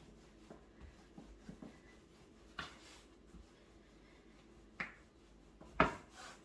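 Clacks and soft taps of a rolling pin on a board as manti dough is rolled out: a few light taps at first, then three sharper clacks, the loudest near the end.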